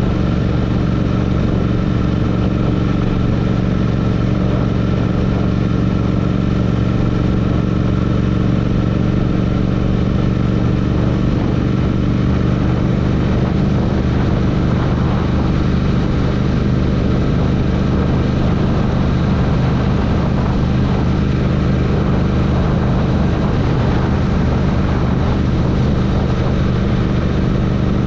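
Royal Enfield Interceptor motorcycle's parallel-twin engine running at a steady, unchanging speed.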